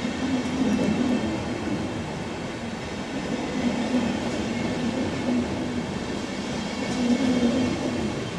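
Intercity coaches hauled by a DB Class 120 electric locomotive rolling out over the station tracks: a steady rumble of wheels on rail with a low drone that swells a few times.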